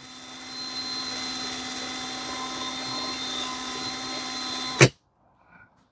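Cordless drill running steadily, spinning a small wire wheel lightly against the keeper grooves of an engine valve stem to clean them. The whine stops with a sharp click about five seconds in.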